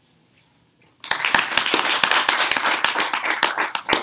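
A small audience applauding. The applause starts about a second in and thins out to a few scattered claps near the end.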